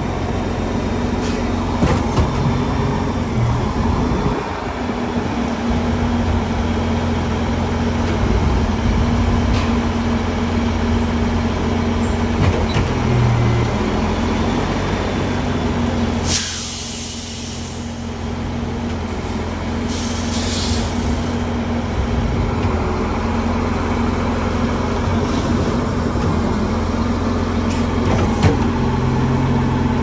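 Mack truck-mounted Schwing concrete pump running steadily as it pumps concrete, with a few sharp knocks along the way. About halfway through the engine sound dips under a loud hiss of air, and a shorter hiss follows a few seconds later.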